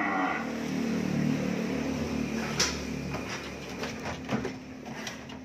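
Young cattle lowing: a moo ends just after the start and deep lowing carries on for about two seconds. Then come several sharp knocks and clatters, about one every half second.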